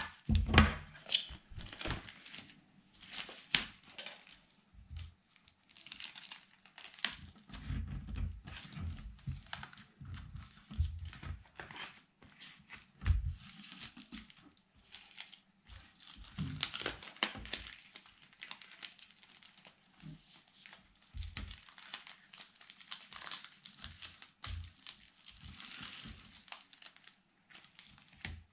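Brown packing tape pulled off its roll and torn, and a flattened cardboard box being handled, smoothed and taped down on a table: irregular crinkling, rustling and ripping, loudest in the first couple of seconds, with a few dull thumps.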